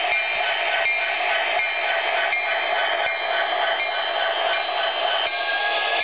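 HO scale model diesel locomotive, an MTH Union Pacific 1995, running along the track right past the camera: a steady whir with a pattern that repeats about every three-quarters of a second, and a slowly rising tone near the end.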